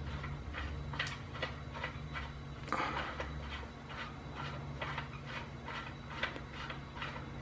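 Two-piece self-timed Beast muzzle brake being spun by hand onto a rifle barrel's threads: a run of light metallic clicks, about two or three a second, with a longer scrape about three seconds in, over a low hum.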